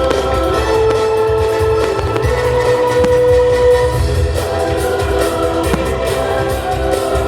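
Music played loud over loudspeakers, with long held chords and a deep rumbling low end, and a few faint firework bangs underneath.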